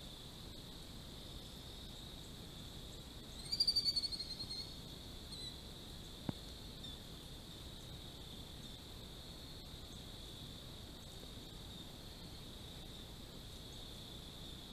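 Steady high-pitched chorus of insects in the field. About three and a half seconds in, a bird gives a short, rapid chattering call that falls slightly in pitch, the loudest sound here. A single sharp click follows a couple of seconds later.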